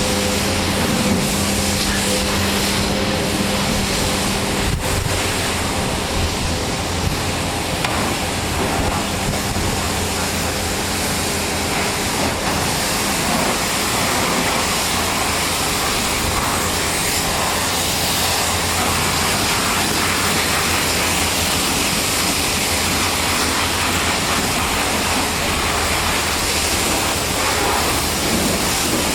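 Pressure washer spraying: a steady hiss of water spray over the even drone of the washer's motor and pump.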